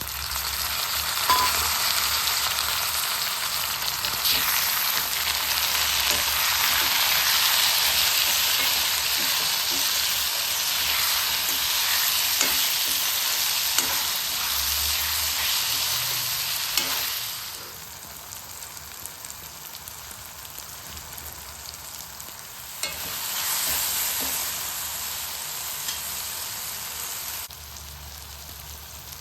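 Food frying and sizzling in a hot pan, with faint clicks of a spoon stirring. The sizzle is loud for more than half the time, then drops to a softer fry, swells again for a few seconds and drops once more near the end.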